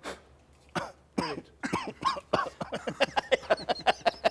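A man laughing: a few separate bursts at first, then a run of quick, evenly spaced laughs, about five a second.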